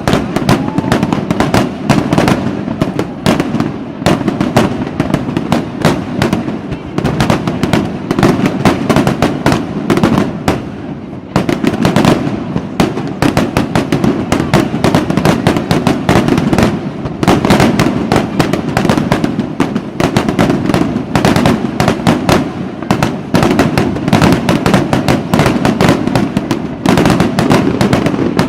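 A dense fireworks barrage: many bangs and crackles overlapping without a break, easing briefly about eleven seconds in before picking up sharply again.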